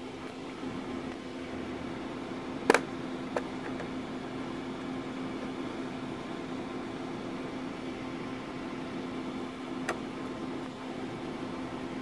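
Steady hum of an electric fan, with a sharp click a little under three seconds in and fainter clicks after it, as a flat metal pry tool works at the seam of a laptop's plastic bottom cover.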